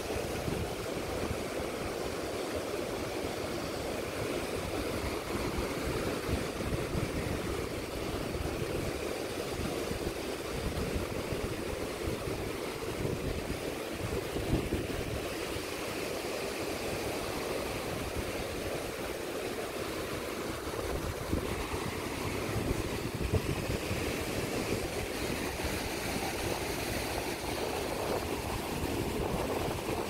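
Small Gulf waves washing against a rock jetty, with wind buffeting the microphone in a gusty low rumble.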